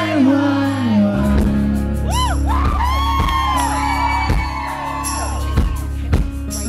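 Live acoustic guitars strumming chords, with a sung note held and falling away in the first second. From about two seconds in, audience members whoop and scream over the music.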